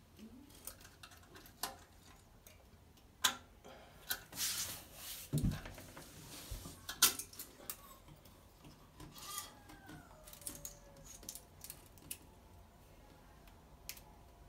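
A hand and a flexible metal snake-light grabber working inside a toilet bowl: scattered clicks and scrapes of metal against porcelain, a brief slosh of water about four seconds in and a low thud about five and a half seconds in.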